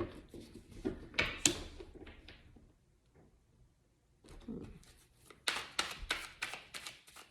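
Tarot cards being handled and shuffled: scattered soft taps and rustles, then a quick run of sharp card flicks about five and a half seconds in.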